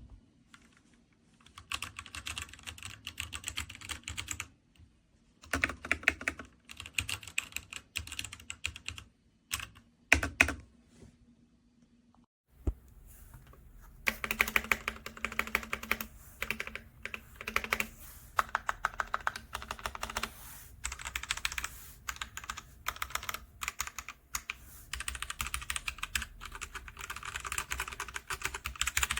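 Typing on a TMKB T61SE mechanical keyboard with red (linear) switches: fast runs of key clacks. The first half comes in short bursts with brief pauses, then the typing runs on almost without a break from about twelve seconds in.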